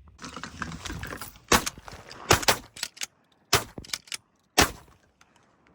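Shotguns fired at ducks: four loud shots over about three seconds, with lighter clacks between them, after about a second of rustling noise.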